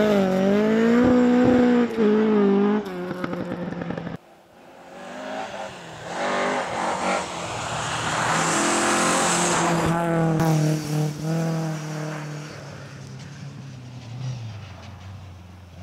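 Ford Escort Mk2 rally car's engine revving up and down as it slides through a snowy bend, cut off suddenly about four seconds in. A second rally car is then heard approaching, revving hard through the gears with a rush of noise as it passes, and fading away near the end.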